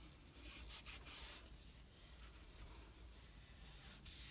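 Hands rubbing and pressing cotton fabric down onto paper, smoothing a folded-over edge: soft brushing strokes, several in quick succession in the first second, fainter in the middle, and another near the end.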